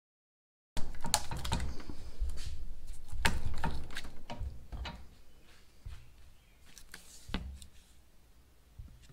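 A metal punch clicking and scraping inside the eye of a steel sledgehammer head held in a vise, clearing out the last wood of the old handle: a rapid run of clicks and scrapes starting about a second in and lasting about three seconds, then scattered taps and a single knock later on.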